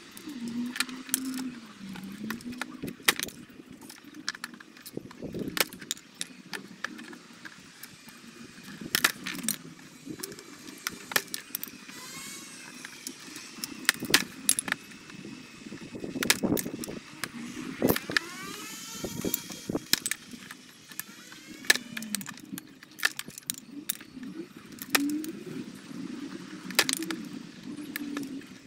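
Dry hollow plant stems being cut to length with long-handled loppers: irregular sharp snaps and clicks as the blades bite through, with loose stems clattering on the workbench.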